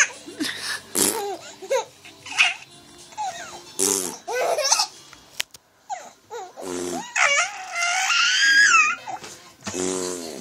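Three-month-old baby giggling and squealing in bursts, laughing at a man's mouth-made farting noises, which buzz low between her squeals.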